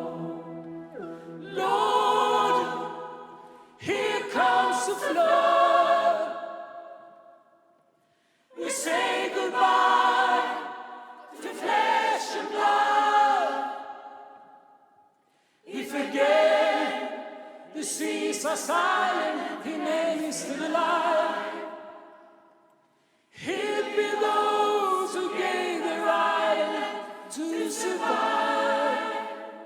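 Gospel choir singing sustained chords in four long phrases, each coming in sharply and fading away, with brief silences between them.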